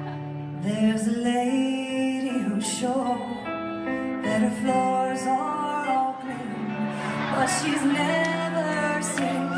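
Background music: a song with singing and sustained instrumental chords.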